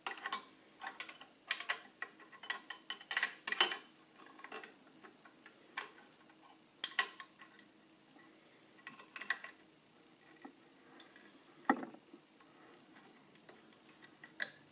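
Metal slide plate of a Singer 401 sewing machine being handled and slid into place over the bobbin area: irregular metallic clicks and taps of steel plate on the machine bed, a few louder ones about three and a half and seven seconds in.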